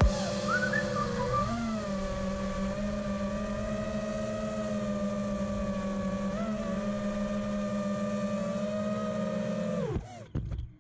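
Four brushless motors of a 5-inch FPV freestyle drone (T-Motor Velox 2306 1950KV on 6S, T-Motor Black Bird props) idling while the drone sits on the ground: a steady whine with two small blips in pitch, about 1.5 and 6.5 seconds in. It cuts off suddenly near the end.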